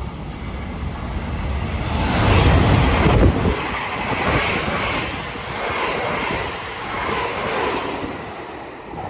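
Meitetsu express train of coupled 9100, 3150 and 3300 series electric cars passing close by. It opens as a rising rumble with wind rushing on the microphone, loudest about two to three seconds in, then settles into a regular clatter that swells about once a second as the cars go by.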